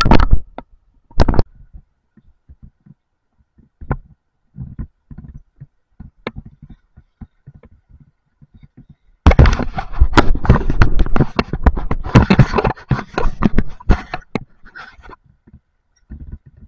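Two-stroke motorized bicycle on the move: a loud, choppy rushing noise with wind on the microphone, from about nine to fourteen seconds in, with a few faint knocks in the quieter stretch before it.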